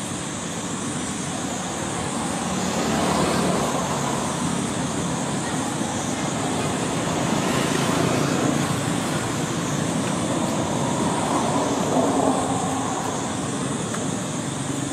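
Steady rushing outdoor background noise that swells and eases about three times, with no clear animal calls.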